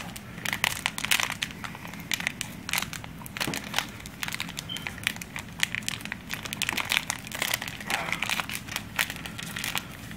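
Magic: The Gathering Legends booster pack wrapper crinkling and crackling as gloved fingers pick and pull at its crimped seal, a pack that is hard to open with gloves on. Many short, irregular crackles.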